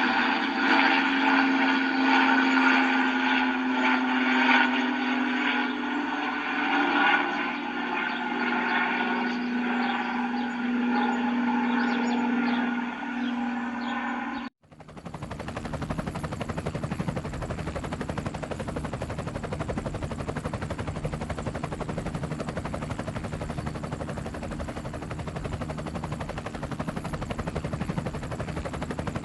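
Two helicopter recordings in turn. The first is a helicopter running with a steady whine made of several tones. About halfway through it cuts off sharply to a second helicopter with a fast, even rotor-blade chop.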